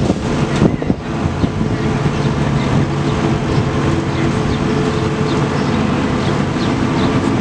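Engine of heavy road-works machinery running steadily, with a few sharp knocks in the first second.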